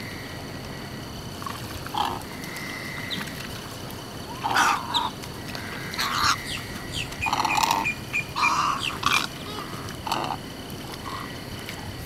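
Wading birds in a feeding flock giving short, low calls, a cluster of them from about four seconds in, over a faint steady high tone.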